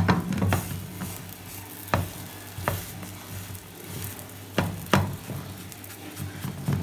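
Fingertips pressing and patting batbout dough in a frying pan on a glass-top hob, giving a few soft taps and knocks over a faint sizzle of the cooking bread and a low steady hum.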